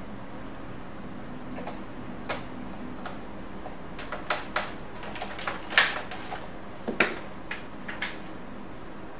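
Scattered light clicks and knocks of hands and a small screwdriver working on a laser printer's plastic and metal parts. Sparse at first, they come more often in the second half, the loudest two a little over a second apart.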